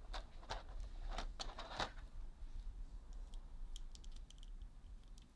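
Small plastic clicks and taps from handling a MAFEX Carnage action figure, working its hands at the wrist joints. The clicks come close together for the first two seconds, then sparser and fainter.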